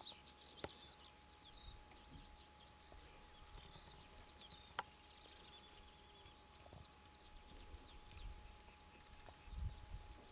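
Faint chirping and twittering of small birds, many short high notes scattered throughout, with a sharp click about a second in and another near the middle, and a low rumbling thump near the end.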